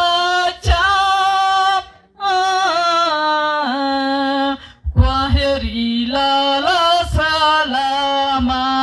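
A woman singing a Swahili shairi (verse poem) unaccompanied as a lament. She draws out long held notes of about two seconds each, with short breaks for breath about two seconds in and again near five seconds.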